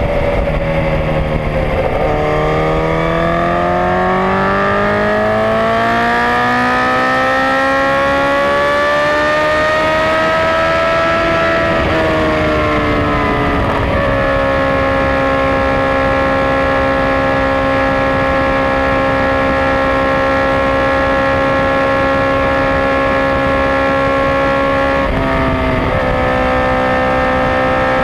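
Honda CBR1000RR's inline-four engine under way with wind rushing past: the engine note dips at the start, then climbs steadily for about ten seconds as the bike accelerates. It drops in pitch about halfway through and holds a steady cruising note, with a brief dip near the end.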